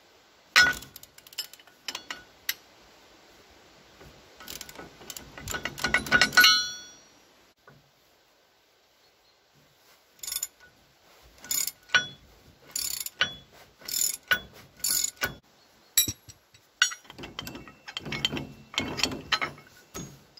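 Socket ratchet wrench clicking as it works bolts loose on a tractor's rear linkage. A quick run of clicks comes about four to six seconds in, then slower single sharp clicks in the middle, and another quick run near the end.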